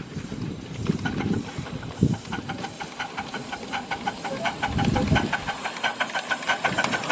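Live steam scale model of Chicago Great Western locomotive 292 running under steam, hissing, with a quick, even exhaust beat that starts about a second in.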